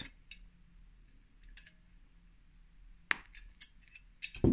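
A few sparse, sharp metal clicks as steel pliers are handled against the galvanized wire trigger of an Ouell mouse trap. The clearest click comes about three seconds in, and a heavier knock comes right at the end.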